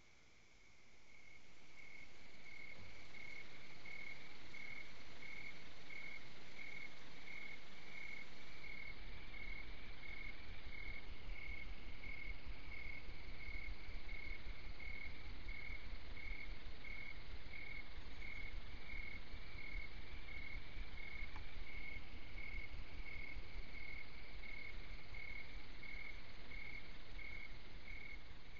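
Crickets chirping in an even, steady rhythm, about two high-pitched chirps a second, with a faint low rumble underneath.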